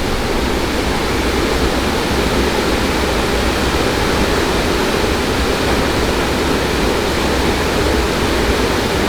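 Waterfall: water pouring steadily, a loud, even rush.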